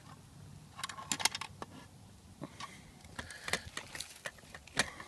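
Aluminium canteen cooking pot and its wire bail handle clinking and rattling as the pot is lifted off the fire rod and set down on the ground: a string of sharp metal clicks and knocks, some with a short ring.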